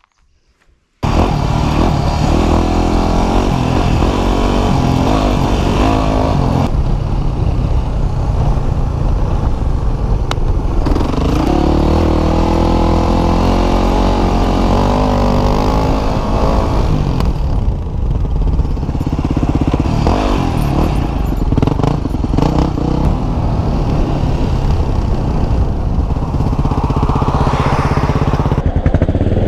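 Single-cylinder motorcycle engine running and revving under way, with wind rushing over a helmet camera. It starts about a second in, and the engine note changes abruptly a few times as the riding clips change.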